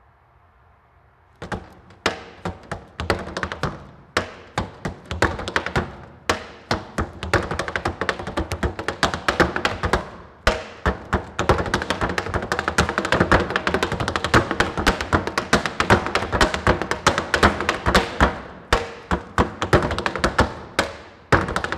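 Tap shoes striking a wooden tap board in a fast, dense rhythm of sharp taps, starting about a second and a half in.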